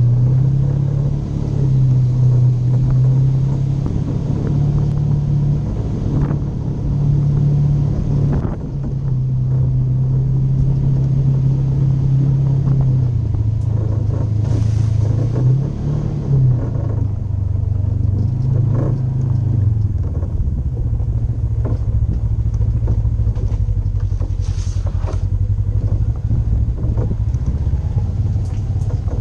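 Polaris RZR 900 side-by-side's engine running as it is driven along a trail. The engine note shifts up and down with the throttle and settles lower in the second half, with scattered knocks from rough ground.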